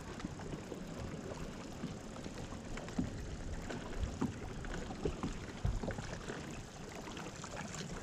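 Steady wind and water noise around a fishing boat, with a few light knocks against the boat.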